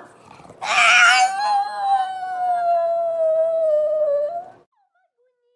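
Pug howling: one long howl starting about half a second in, loudest at its start, then held while it slides slowly down in pitch, and stopping about four and a half seconds in.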